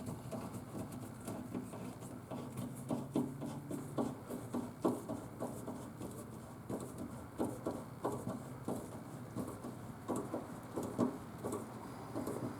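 Hand work tightening down the drain line connection on a dishwasher: a steady, irregular string of small clicks, taps and rubbing as the tool and fitting are handled.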